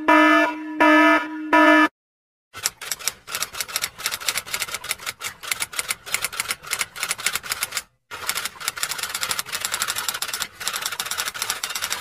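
An electronic alarm sounds about three short, evenly spaced beeps, then stops. After a brief silence a typewriter's keys clack in rapid, uneven strokes, with one short break partway through.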